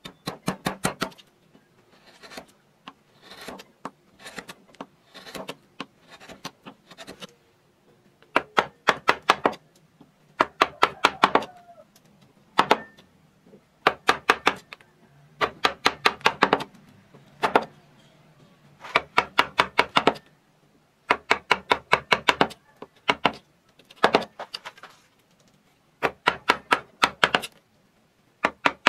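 Half-round wood-carving gouge worked by hand into a wooden relief panel, cutting in short runs of quick sharp taps, several a second, with pauses between the runs.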